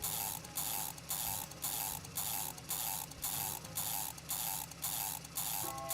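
Toy crane's winch being cranked to haul a toy truck up, a regular ratcheting rasp repeating about three times a second.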